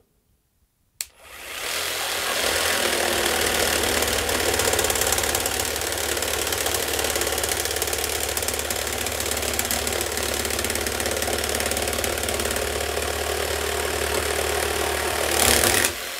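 Bosch GST 10.8 V cordless jigsaw sawing through a thick block of oak. A click about a second in as it starts, then a steady running cut with a constant low hum from the blade strokes, briefly louder near the end.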